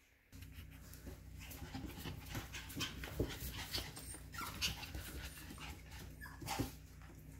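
F1B cockapoo puppies panting, with a few short whimpers, over many quick clicks and scuffs.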